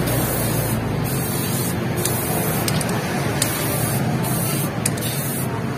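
Aerosol spray-paint can hissing as red paint is sprayed onto a bus's mud flap, in several bursts of a second or so with brief breaks between them.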